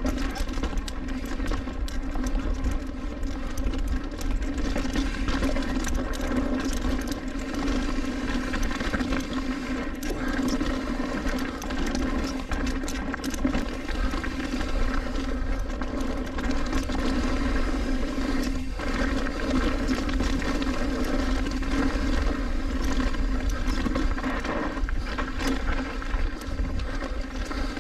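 Mountain bike ridden fast down a dirt and rock trail: wind rushing over the camera microphone and tyres rolling, with a steady buzz and many small rattles and knocks.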